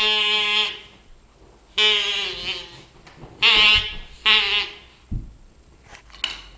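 A person mimicking a dying animal with four drawn-out, wavering wordless cries, each under a second long. A low thump follows about five seconds in, and a short click near the end.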